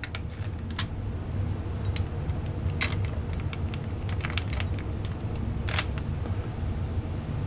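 Scattered light clicks and taps of small metal and plastic parts as the internals of a disassembled Sig Sauer MPX/MCX CO2 air rifle are handled and its valve assembly is worked loose, over a steady low hum.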